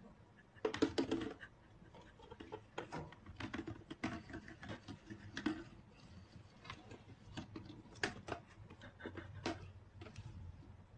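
Small plastic bottle tapping and knocking against a wooden floor as a hamster grabs and tugs at it, with the hamster's light scrabbling. A quick cluster of knocks about a second in is the loudest, followed by scattered irregular taps.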